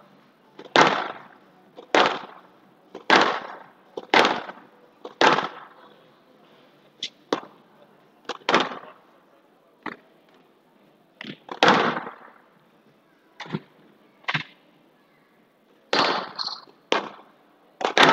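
A squash ball being struck with a racket and smacking off the walls of a glass squash court: sharp cracks about once a second for the first five seconds, then more irregular hits, each with a short echoing tail.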